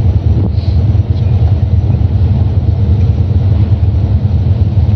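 Steady low rumble on the open deck of a cruise boat under way: wind buffeting the microphone, with the boat's engine running beneath.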